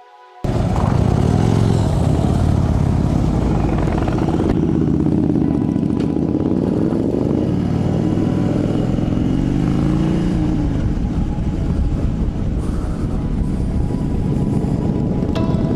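Motorcycles running on the road, engine pitch rising and falling as the bikes change speed.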